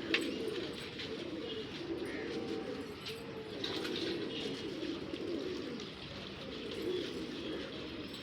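Several pigeons cooing without a break, their low, wavering coos overlapping, with a sharp click near the start.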